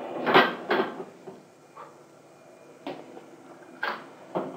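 Enamel saucepan clattering on the metal grate of a gas stove while a burner is lit with a match: a loud clatter about a third of a second in, then a few sharp knocks of the pan on the grate.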